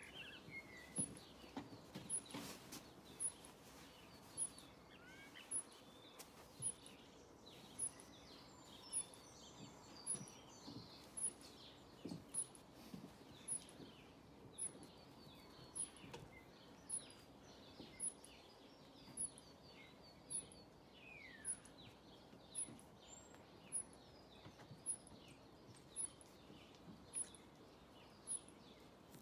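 Garden birds chirping and singing, with a short, very high-pitched note repeating about once a second. A brief knock or rustle about two seconds in.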